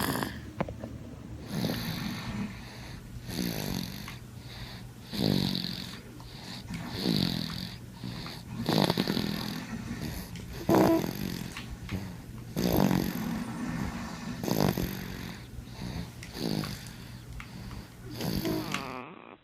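A sleeping baby snoring in a steady rhythm, about one snore every two seconds.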